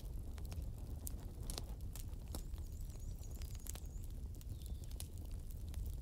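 Wood campfire crackling, with irregular sharp pops from the burning logs over a steady low rumble.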